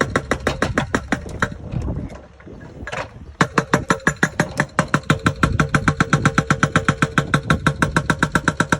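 Volvo BL71 backhoe loader's diesel engine running with a steady, even knocking about seven times a second. The knocking drops away for about a second and a half a couple of seconds in, then picks up again at the same pace.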